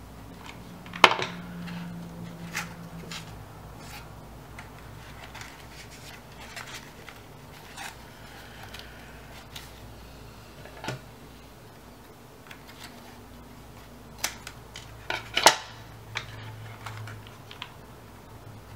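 Paper strips and cardboard being handled and pressed together, with scattered rustles and small clicks and two louder clacks, one about a second in and one late on.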